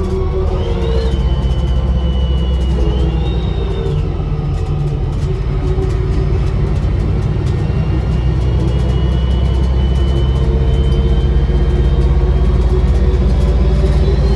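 Bus diesel engine running under load, with a high turbocharger whistle on top. The whistle rises sharply about half a second in, holds, climbs again and drops away about four seconds in, then returns about seven seconds in as a steady tone creeping higher and rises once more near the end. Heard from inside the bus.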